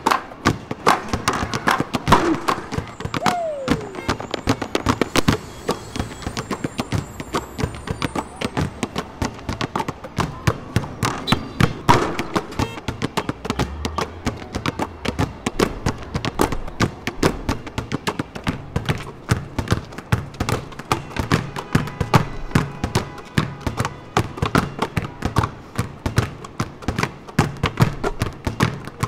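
Several basketballs dribbled together on an asphalt court, their bounces making a fast, steady percussion rhythm of thuds, several a second.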